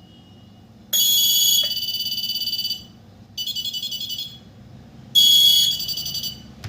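Wireless nurse call station panel's electronic buzzer sounding a call alert three times, each a bright high-pitched tone running into a fast warbling pulse, the middle one quieter. It signals an incoming call from a pull-cord transmitter.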